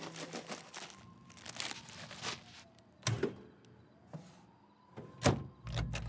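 Plastic wrapper crinkling as frozen food is shaken out onto a paper plate, followed by a few sharp clicks and clunks from the microwave door, the loudest about five seconds in.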